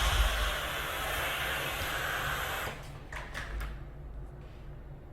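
Kärcher SC4 EasyFix steam cleaner hissing out steam, which stops about two and a half seconds in, followed by a few light clicks and knocks.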